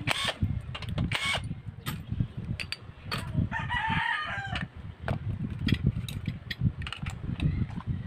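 A rooster crows once, about three seconds in, for about a second and a half, over scattered clinks and knocks of metal engine parts and tools being handled. Near the start a cordless impact driver gives a short burst on a crankcase bolt.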